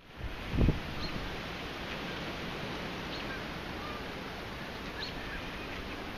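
Outdoor ambience of a steady breeze rushing, with faint short bird chirps about every two seconds. A single brief low thump sounds about half a second in.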